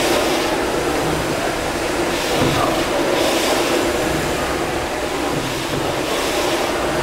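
Several Gimson steam beam engines running together in the engine hall. They make a steady mechanical din, with a hiss of steam that swells and fades about every second or two.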